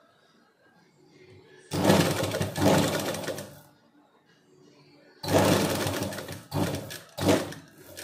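Sewing machine stitching in bursts: a run of about two seconds, a pause of over a second, another run of about a second and a half, then a few short spurts as the seam is stitched a little at a time.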